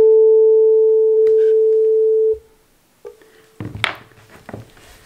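A 440 Hz tuning fork on a wooden resonator box rings as a loud, steady pure tone with a faint higher overtone, then stops abruptly a little over two seconds in as it is damped by hand. About a second later a much fainter tone at the same pitch sounds, with a few soft rustles.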